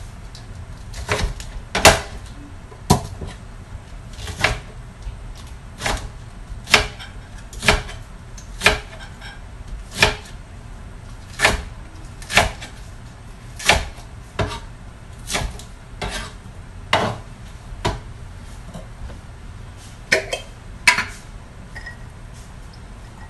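Kitchen knife slicing carrots on a wooden cutting board: single sharp knocks of the blade on the board, about one a second and unevenly spaced, stopping shortly before the end.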